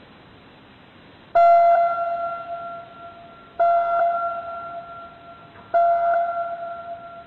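Music: a single high keyboard note struck three times at the same pitch, about two seconds apart, each ringing out and fading, over a faint hiss.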